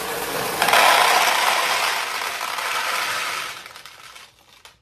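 Hundreds of steel pachinko balls poured from a plastic tub into the top ball tray of a vintage Nishijin Model B pachinko machine: a dense metallic clatter that swells about half a second in and dies away after about three and a half seconds.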